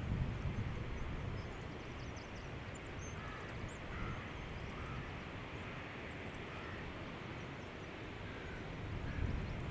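Distant waterfall rushing as a steady hiss, with wind gusting on the microphones as a low rumble that swells again near the end. Faint short bird calls come through now and then.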